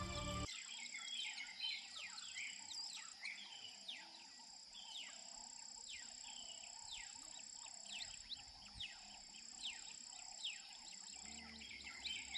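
Faint birdsong: many short, high chirps sweeping down in pitch, repeated several times a second.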